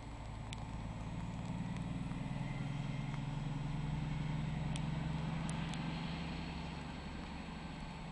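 DB class 218 diesel-hydraulic locomotive's engine working under power as it pulls away. Its low drone grows louder over the first few seconds, then eases off toward the end.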